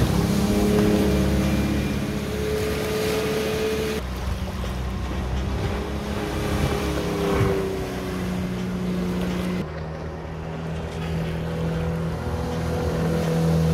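Maxum 1900 SR2 speedboat's 4.3-litre MerCruiser V6 sterndrive engine running at planing speed as the boat passes, its pitch sliding down as it goes by, over the rush of water from the hull and wake. The sound jumps abruptly twice, at about four seconds and near ten seconds.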